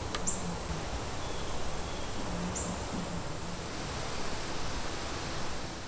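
Steady outdoor background hiss with a faint, thin high tone, broken by two brief high chirps, one just after the start and one about two and a half seconds in.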